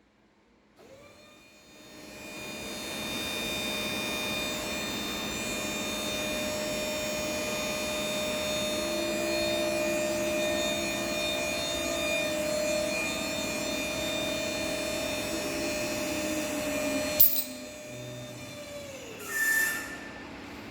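Electric hydraulic pump of a no-ramp trailer's hydraulic lift running with a steady whine, starting about a second in. Near the end there is a sharp click, the pump winds down in pitch, and a short knock follows.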